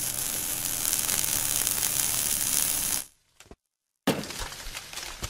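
Amada horizontal automatic band saw running with a steady high hiss over a faint low hum. It cuts off abruptly about three seconds in. It resumes about a second later with a string of clicks over the same noise.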